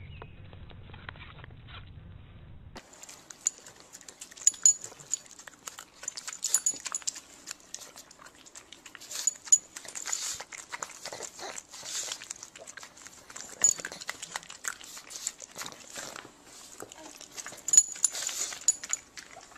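A dog sneezing again and again in short, sharp bursts at irregular intervals.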